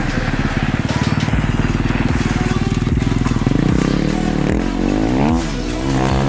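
KTM 450 EXC-F's single-cylinder four-stroke engine running hard at steady revs, then revved up and down several times in the second half as the bike turns and slides on snow.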